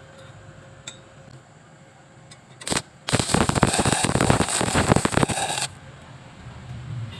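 Stick-welding arc: a short burst as the electrode is struck, then about two and a half seconds of loud, dense crackling that cuts off suddenly when the arc is broken.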